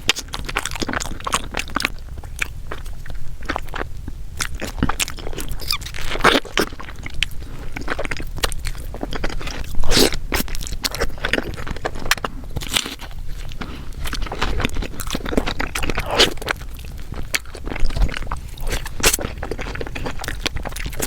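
Close-miked mouth sounds of mochi being bitten and chewed: irregular wet clicks and smacks throughout.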